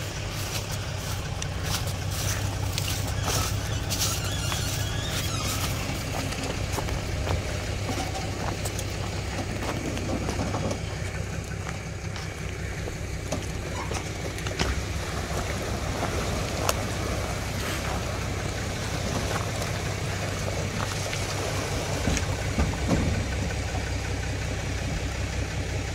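Pickup truck engine running low and steady while the truck backs a boat trailer down a launch ramp into the water.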